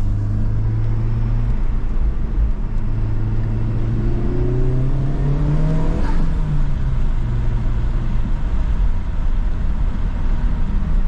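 Honda Civic Type R FL5's turbocharged 2.0-litre four-cylinder engine pulling under acceleration, with road rumble. The engine note rises steadily from about two seconds in, drops suddenly about six seconds in at a gear change, then settles.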